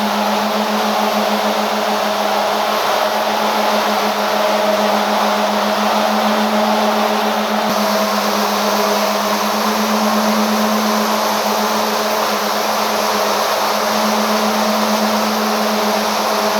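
Fancy yarn twisting machine running steadily, a loud even whir with a constant low hum.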